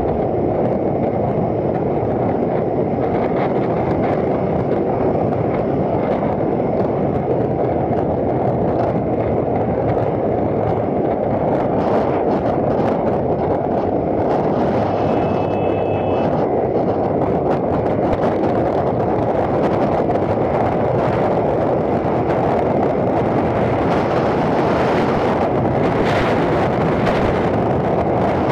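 Steady wind rush over the camera microphone of a Ducati motorcycle riding at motorway speed, mixed with engine and road noise. About halfway through, a brief faint steady tone sounds over it.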